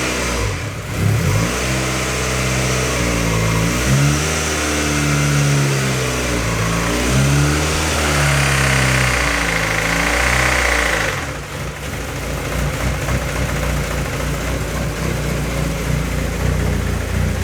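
Rebuilt Honda D16Z6 SOHC four-cylinder engine held at a fast idle around 2,000 rpm, the revs wavering up and down. About eleven seconds in it drops back to a lower idle and runs on with a rougher sound, a bad noise that the builder puts down to valve clatter.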